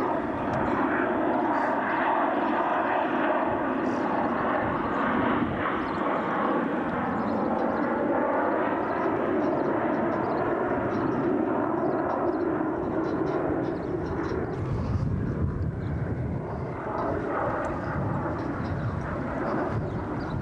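A steady aircraft engine drone overhead. Wind rumbles on the microphone over the last few seconds.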